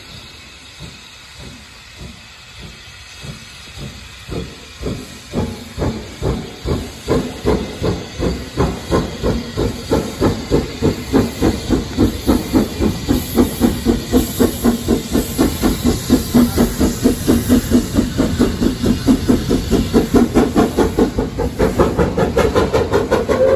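Bagnall 0-6-0 saddle-tank steam locomotive working hard as it lifts a loaded freight train away, its chimney exhaust beats quickening and growing louder as it draws closer, over a steady steam hiss.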